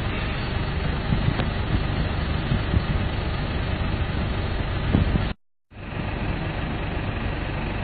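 Steady low rumble of outdoor background noise, with no clear single source. It cuts out briefly about five and a half seconds in.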